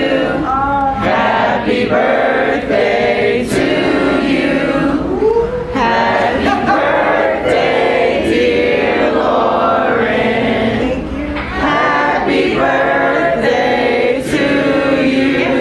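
A group of people singing together.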